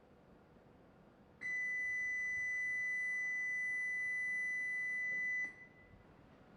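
A single steady electronic beep at one high pitch, starting suddenly about a second and a half in, held for about four seconds and cut off sharply. It is most likely a warning tone on a shinkansen station platform.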